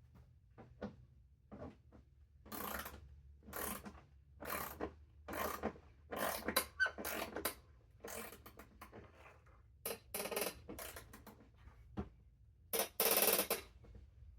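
A bolt being driven with a T40 Torx bit in short, repeated strokes about one a second, with a longer, louder burst near the end. The bolt is hard going, perhaps from paint on its thread.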